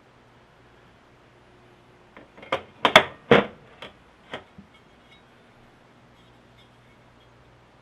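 A quick run of about eight sharp metallic clicks and clinks over two seconds, small metal parts or tools being handled and knocked together, the loudest a couple of seconds in.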